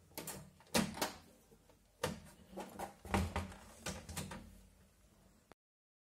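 A series of clicks and knocks as the LG microwave oven is handled at its door and control panel, over the faint, steady low hum of the oven running. The oven has just been repaired with a new mica cover, and no sparking is heard. The sound cuts off abruptly about five and a half seconds in.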